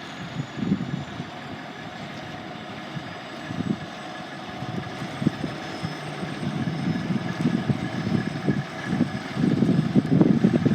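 Fire truck's engine running, an uneven low rumble that grows louder over the last second or so.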